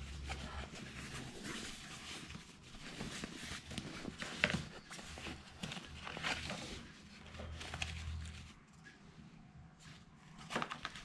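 Rain jacket being handled: irregular rustling and crinkling of its waterproof fabric, over a low hum.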